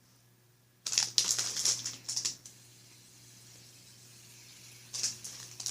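Crinkling and light rattling as a fidget spinner and its packaging are handled: a burst starting about a second in and lasting about a second and a half, then a short second burst near the end.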